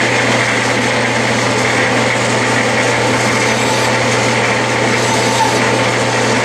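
Clausing metal lathe running steadily with the spindle turning, while a hand file rubs lightly across the crests of the freshly cut threads to dress them.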